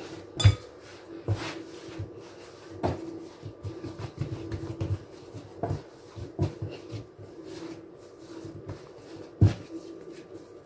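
Samosa dough being kneaded by hand on a countertop: irregular soft thumps as the dough is pushed and turned, with rubbing between them, the loudest thumps about half a second in and near the end. A faint steady hum runs underneath.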